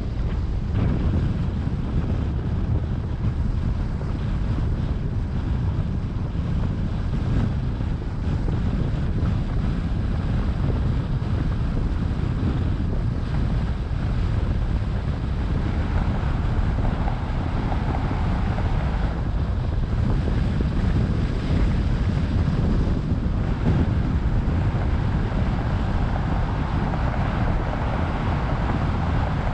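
A car being driven: a steady rumble of road and wind noise with no breaks, a little brighter in the second half.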